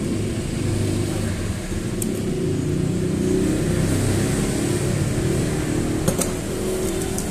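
A running engine's steady low hum, with two faint clicks, about two seconds in and again about six seconds in.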